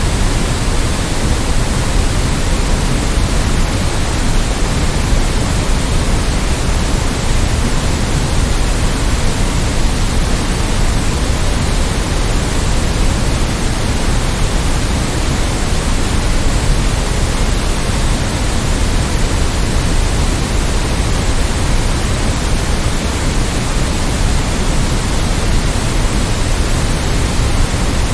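Steady synthetic noise: an even, unbroken hiss spread across all pitches, a little heavier in the low end, with no change in level.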